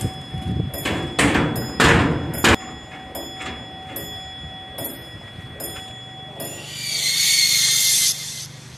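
Edited sound effects: a few sharp thuds in the first two and a half seconds, then a loud hissing whoosh lasting about a second and a half near the end, over faint steady held tones.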